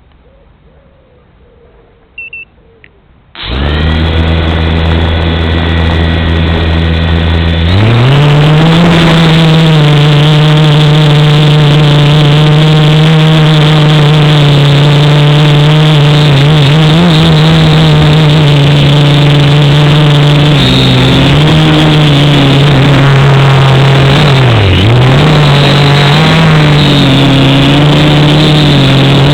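Quadcopter electric motors and propellers: a couple of short electronic beeps, then the motors start about three and a half seconds in with a steady buzz. Near eight seconds the buzz rises in pitch as the throttle comes up, and it holds steady and loud, with brief dips in pitch later on.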